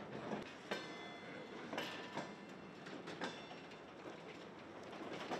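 Loaded railway flatcars rolling along the track: irregular metallic clanks and knocks from the wheels and couplings over a steady rumble, with a faint high squeal about a second or two in.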